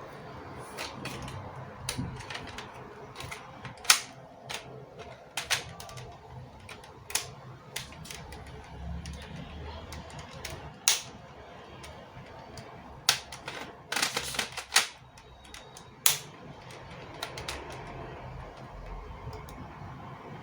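Sharp plastic clicks and snaps from a LEGO Technic rifle being handled, about a dozen spaced irregularly, with a quick run of them near the middle.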